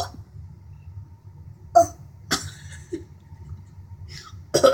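A child's fake coughs: two short coughs about two seconds in, a couple of faint ones after, and a louder cough starting near the end.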